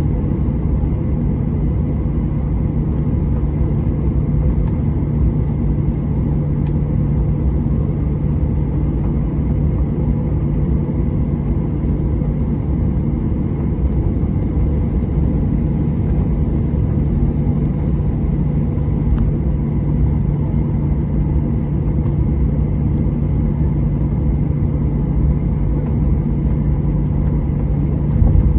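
Boeing 737-800 cabin noise while taxiing: the CFM56-7B turbofans running steadily at taxi power under a constant low rumble with a steady hum, heard from inside the cabin. There is a brief bump just before the end.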